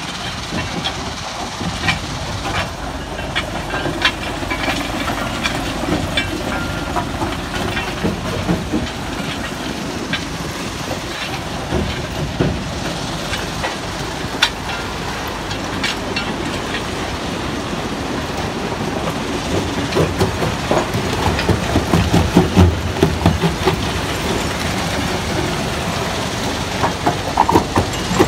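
Stone crushing plant running: the crusher and conveyors make a loud, steady mechanical din, dense with the knocking and clatter of rock. Heavier low knocks come about three quarters of the way through.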